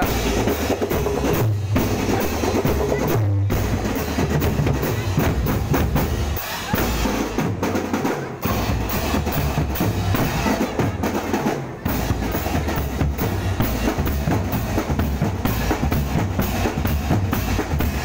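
Indonesian drum band (drumband) playing a fast march, dominated by snare and bass drums in dense rapid strokes, with a few short breaks in the beat.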